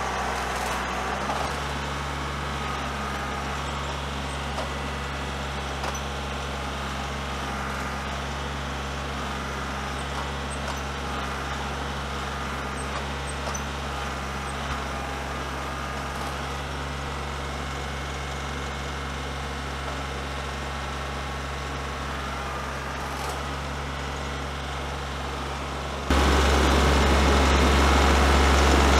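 Compact tractor's diesel engine running steadily while the tractor works through snow with a loaded front bucket, heard at a distance, then abruptly much louder near the end as the tractor comes close.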